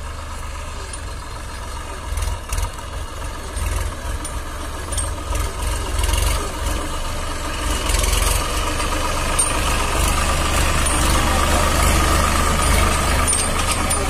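Diesel engine of a Massey Ferguson 9000 tractor, a 50 hp three-cylinder, running under load as it pulls a loaded trolley. It grows louder about halfway through as the tractor comes close.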